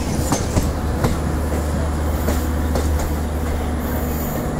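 Express passenger train coach running at speed, heard from inside at the open door or window: a steady low rumble of wheels on rail with irregular sharp clicks as the wheels cross rail joints, several in the first three seconds.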